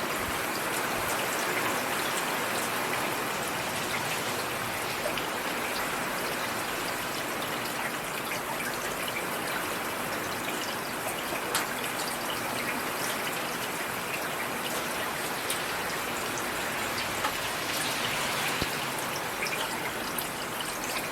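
Steady rain falling, a dense hiss of drops with many individual drop ticks pattering on a surface.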